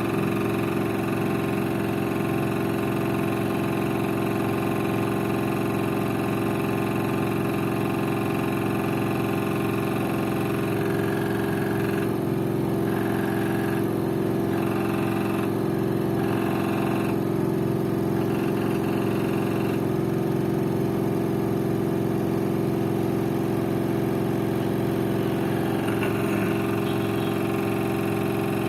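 LG FV1450S1B 10.5 kg front-loading washing machine spinning, a steady hum with a higher tone that cuts in and out several times midway. The spin carries an odd noise that the owner likens to a bolt not tightened enough.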